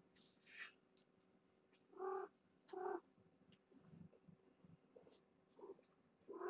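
Two short cat meows, about two and three seconds in, with a few faint shuffling sounds in between.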